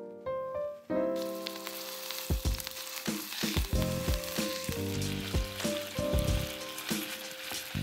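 Raw ground beef sizzling in hot olive oil in a nonstick frying pan, the hiss setting in about a second in. From about two seconds in, a wooden spatula knocks and scrapes against the pan as it breaks the meat into crumbles.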